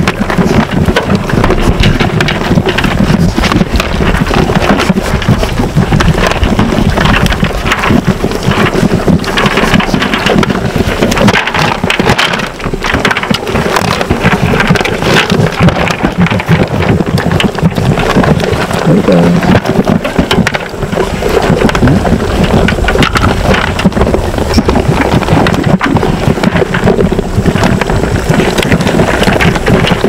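St. Croix sheep crowding a metal feed pan, eating and jostling right at the microphone: a constant loud crackling and rustling, with rumbling buffets.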